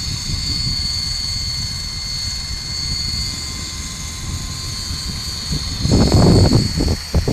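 Electric coaxial RC model helicopter in flight: its brushless motor and contra-rotating six-blade rotors make a steady high whine over a low rotor rumble. About six seconds in, a loud rumbling surge of low noise rises over it for about a second.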